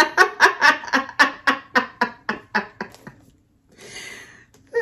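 A woman laughing hard in a quick run of 'ha' bursts, about four or five a second, trailing off over about three seconds, then a breathy inhale near the end.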